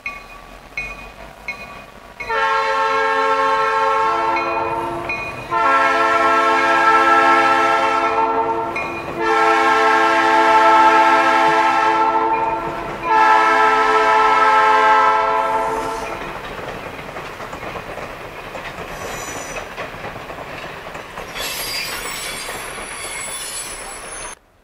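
Diesel locomotive 7236's Nathan P3 air horn sounding four long blasts of about three seconds each, a chord of several notes. After the horn, the train rumbles and clatters over the rails until the sound cuts off suddenly near the end.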